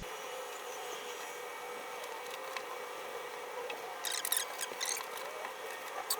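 Wiping and rubbing to clean dirt off the fuel pump access on a car, light handling sounds over a steady hiss, with a cluster of quick scratchy scrubbing strokes about four seconds in and more at the very end.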